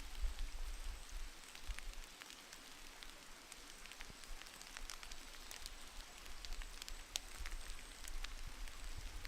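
Scattered faint ticks and crackles over a low rumble of wind on the microphone.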